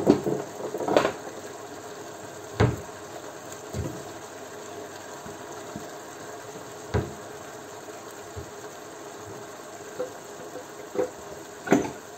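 Kitchenware being handled and put away: about eight scattered clinks and knocks, the loudest near the start and just before the end. Under them, a wide pan of sofrito with white wine simmering steadily on high heat as the wine reduces.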